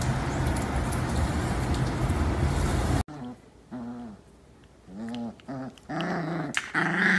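A steady rushing noise for about three seconds. After an abrupt cut comes a string of short dog growls and whines, each under half a second, from a grown dog and a puppy at mouthy play. The loudest call comes near the end.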